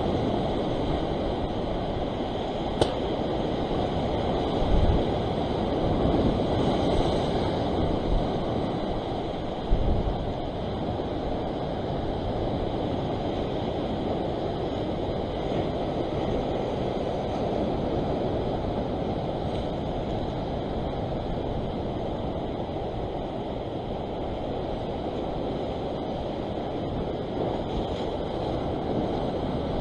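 Ocean surf washing over and breaking against coastal rocks, a steady rush of water, with a few dull low thumps of wind on the microphone.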